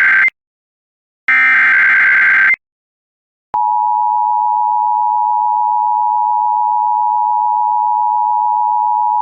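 Emergency Alert System SAME header: the end of one screeching digital data burst, then one more burst of about a second, then after a one-second gap the long steady attention tone near 1 kHz begins. This sequence marks the start of a broadcast emergency alert, here a severe thunderstorm warning.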